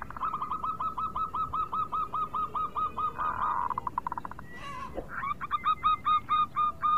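Zebra dove (perkutut) singing: a run of staccato cooing notes, about five a second, then a brief rolling trill about three and a half seconds in, then a second run of cooing notes. A single sharp click about five seconds in.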